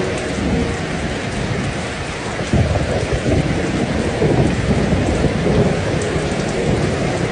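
Heavy rain falling steadily, with a low rumble that swells about two and a half seconds in.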